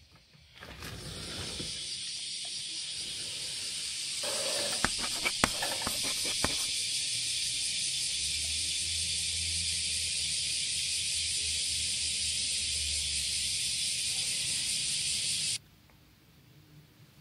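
A steady hiss that starts about half a second in, with a few sharp clicks a few seconds in, and cuts off suddenly near the end.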